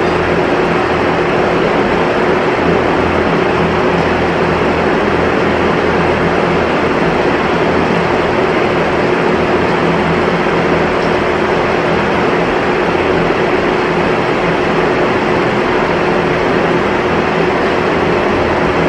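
Machinery running steadily: a loud, unbroken drone with one constant hum tone in it.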